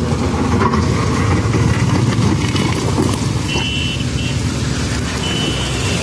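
Komatsu PC130 excavator's diesel engine running steadily while the machine works a gravel pile. Two short high-pitched tones sound over it in the second half.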